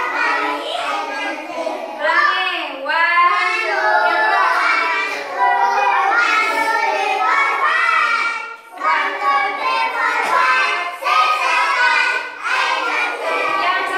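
A group of young children singing a song together, with a short break about eight and a half seconds in.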